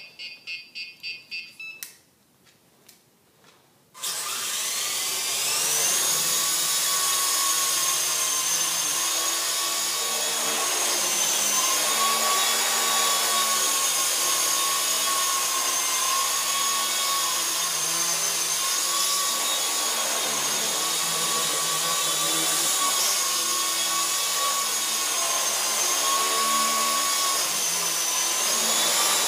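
Rapid electronic beeping for the first two seconds, then a short pause with a few clicks. About four seconds in, a WLtoys V912 RC helicopter's electric motors and rotors spin up into a steady high whine that wavers slightly in pitch as it hovers and manoeuvres.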